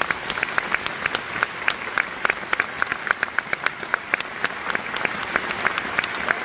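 Concert audience applauding steadily, a dense patter of many hands, with sharp, louder claps from someone close by standing out throughout.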